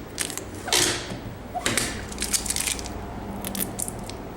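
Plastic film and tape on a new compact refrigerator crinkling and crackling in a few short, irregular bursts as they are handled.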